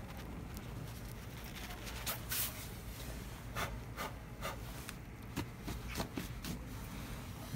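A tabby cat chewing and smacking on shredded cooked chicken breast close to the microphone: a string of irregular short clicks, thickest from about two seconds in.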